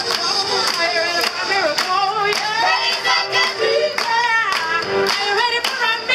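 Choir singing with a lead voice on a microphone through a loudspeaker, the singers clapping hands in a steady beat about twice a second.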